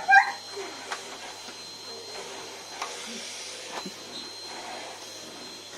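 Vacuum cleaner running steadily, with a thin high whine over its motor noise. A French bulldog gives a short, loud bark right at the start, and there are a few faint knocks.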